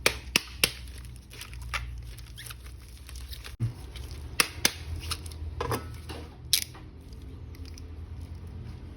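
Irregular sharp clicks and light taps, several close together at the start, with a few brief scraping sounds, from hard plastic action figures and their parts being handled.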